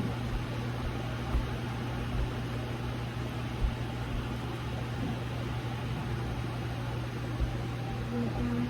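Steady low hum with an even hiss, like a running fan or air conditioner, with a few faint knocks.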